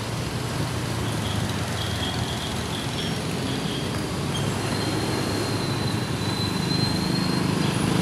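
Steady road noise from a vehicle riding along a city street over grooved concrete: a low engine hum and tyre rumble, with passing traffic. A thin, high, steady whine comes in about four and a half seconds in and fades about two seconds later.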